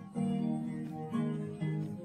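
Background music led by acoustic guitar, chords changing about every half second.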